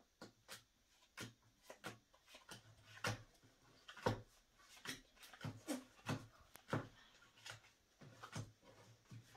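Uno cards being dealt one at a time onto a tabletop: a string of faint, short taps, about two a second.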